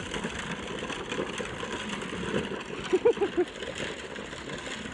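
Steady rough rumble of a low kid's trike's wheels rolling on asphalt. About three seconds in come four short high-pitched calls in quick succession.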